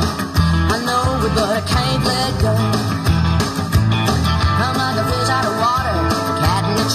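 Up-tempo rock-and-roll style song with guitar and a steady bass beat.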